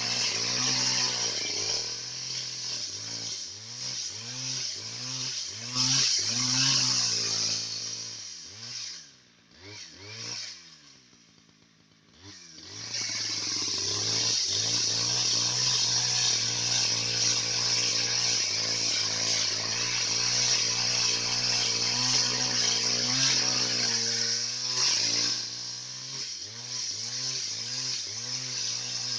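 Husqvarna 570 two-stroke chainsaw cutting timber, its engine rising and falling in pitch as the throttle and load change. About eight seconds in it winds down and goes nearly quiet for a few seconds, then revs back up and runs steadily in the cut.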